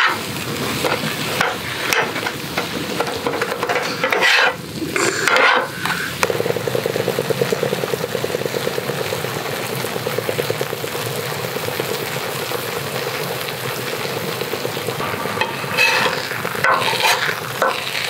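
Monjayaki batter with chopped cabbage sizzling on a hot griddle while a metal spatula scrapes and mixes it across the plate, the batter now thickened and the cabbage softened. Louder scraping strokes come a few seconds in and again near the end.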